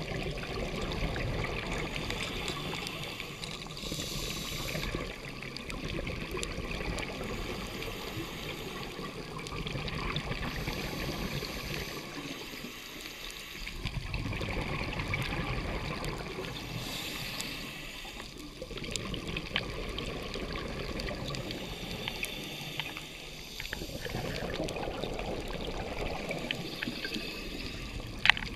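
Scuba diver breathing underwater through a regulator: a gurgling rumble of exhaled bubbles lasting a few seconds, broken by short hissing inhales, over several breaths.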